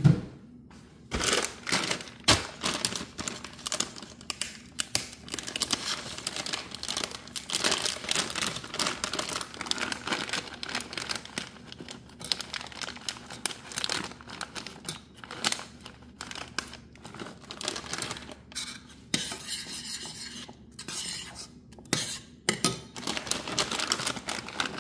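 A plastic zip bag of chopped pecans crinkling as the pieces are shaken out into a stainless steel saucepan, with a metal spoon clinking and scraping against the pan. A sharp clink comes right at the start.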